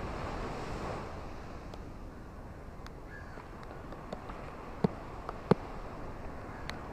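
Steady rush of rain and surf, with scattered heavy raindrops tapping close by. The two loudest taps come about five and five and a half seconds in.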